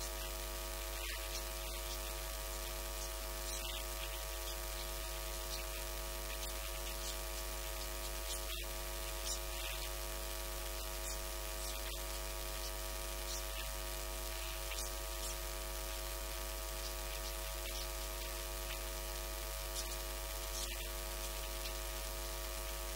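Steady electrical mains hum with a buzz of many fixed tones over a constant static hiss.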